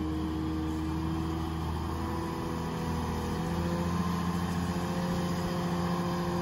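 Komatsu wheel loader's diesel engine running steadily while the machine holds a slung boulder, its note rising a little about halfway through.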